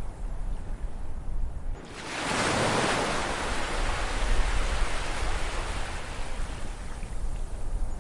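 Ocean waves: over a steady low surf rumble, a wave breaks about two seconds in, a sudden rushing wash that swells and then slowly fades away.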